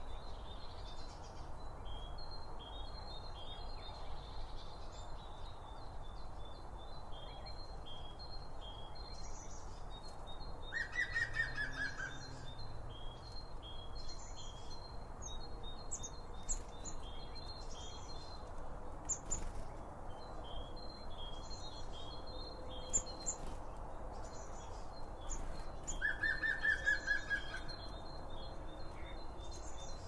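Garden birds, blue tits among them, chirping and calling in a steady stream of short high notes. A louder burst of song with a quick falling trill comes twice, about eleven seconds in and again near the end, over a faint steady background hiss.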